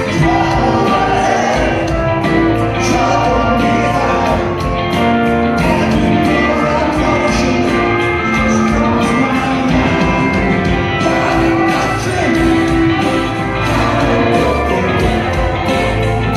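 Live rock band playing with singing, guitar, upright bass and drums, heard from within the audience in a large hall.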